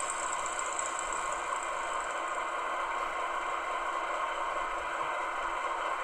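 Model Köf II diesel shunter's sound decoder playing a steady diesel idle through its small loudspeaker while the locomotive stands still; a thin, even engine noise with no deep bass.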